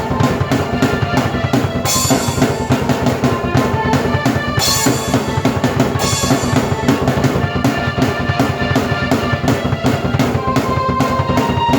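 Drum kit played fast and busy, bass drum and snare driving under sustained keyboard chords, with cymbal crashes about two seconds in, near the middle and again a second later.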